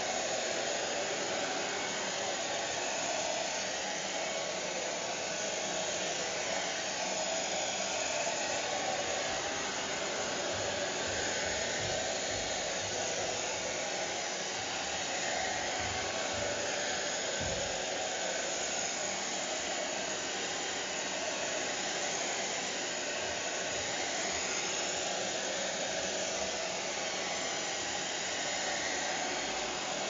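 Hair dryer running steadily, an even, unchanging noise.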